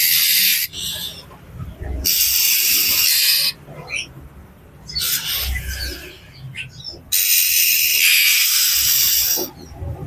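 Oriental magpie-robin (kacer) giving agitated, rasping scolding calls. There are three long, harsh buzzing rasps: one at the start, one about two seconds in, and the longest of a little over two seconds near the end. Short, fainter chirps come between them.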